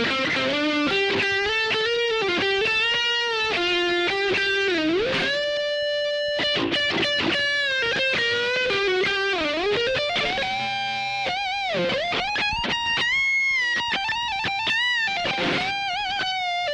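Electric guitar lead from a Jackson JS32-7Q Dinky 7-string on its neck pickup, through a Blackstar HT-1RH 1-watt valve amp heard from the amp's emulated line out with big reverb. It plays a single-note melodic line with bends and slides, quick runs, and vibrato on the held notes.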